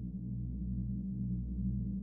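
Low, dark drone from the EERIE 2 Kontakt sample library: several deep tones held together, pulsing softly about twice a second.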